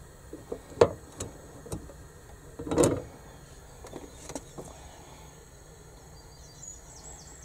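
A few sharp metallic clicks and a louder clunk about three seconds in, from a pan-style sandwich toaster sitting on a gas hob's metal pan support. A bird chirps faintly near the end.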